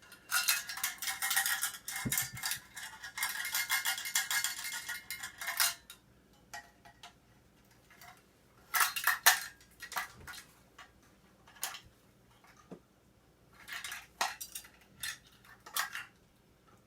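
Scrap metal parts from a dismantled microwave magnetron clattering and clinking as they are handled. A dense rattle for the first six seconds or so, then scattered single clinks and taps.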